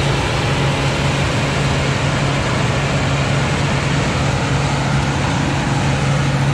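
Combine harvester running under load while picking and shelling corn: a loud, steady mechanical drone with a constant low hum.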